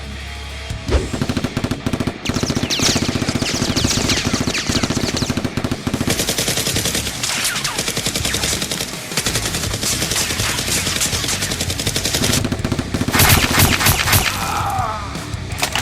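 Sustained rapid automatic gunfire, one burst overlapping the next. It starts about a second in, eases briefly around nine seconds, and peaks in a heavy burst near the end before tailing off.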